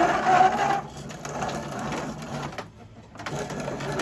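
Grain mill grinding dried corn kernels, a steady crunching rattle that breaks off briefly about three seconds in.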